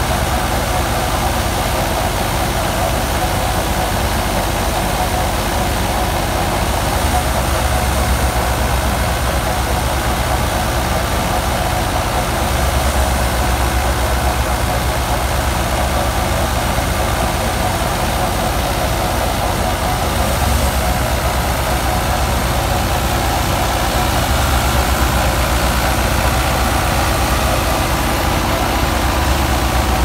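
Fiat 640 tractor's four-cylinder diesel engine running steadily under load, driving a wheat thresher through its PTO shaft, together with the thresher running. A low engine rumble sits under a steady rushing noise from the machine, unchanged throughout.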